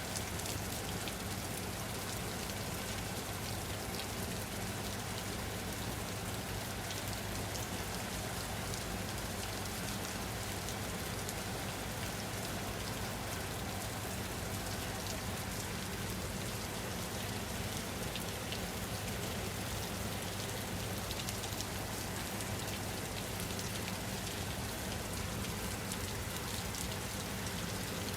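Steady rain falling on a surface, an even hiss with many fine drop ticks, unchanging throughout.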